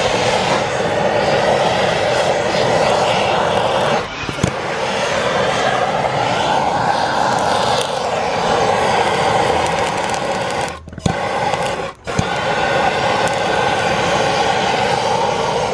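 Handheld gas torch burning with a loud, steady rushing noise as its flame is driven into wood in a metal fire pit, throwing sparks. The noise drops out sharply twice, about eleven and twelve seconds in.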